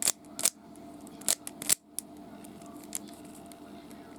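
Layers of a plastic 3x3 Rubik's Cube being twisted by hand: about six sharp clicks at irregular spacing, most of them in the first two seconds.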